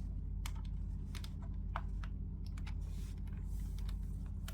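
Irregular light clicks from handling a plastic remote-controlled toy and its controller, including button presses, over a steady low hum. The clearest click comes a little under two seconds in.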